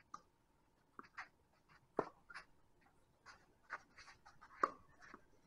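Sounds of tennis play: a scatter of short, sharp knocks and scuffs from ball bounces, racket strikes and shoes on the court. The loudest knocks come about two seconds in and just before the end.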